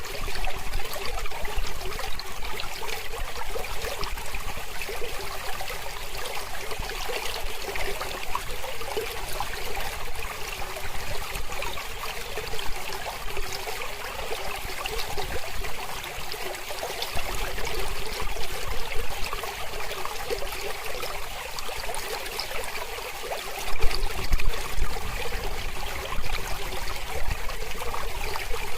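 Gentle mountain river flowing, a steady rush and trickle of water that briefly gets a little louder near the end.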